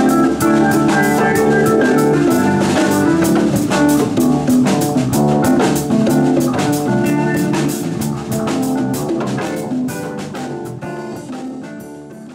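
Live band playing an instrumental jam on electric guitar and drum kit, with steady drum and cymbal hits and no singing. The music fades away over the last few seconds.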